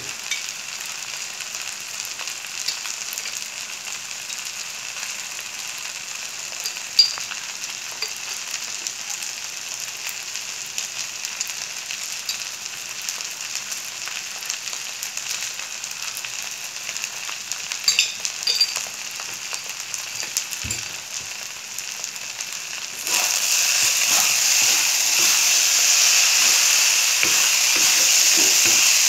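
Fried rice sizzling in a wok as it is stir-fried, with a wooden spatula scraping and clicking against the pan. About three-quarters of the way through the sizzle jumps louder and stays up as the rice is tossed harder.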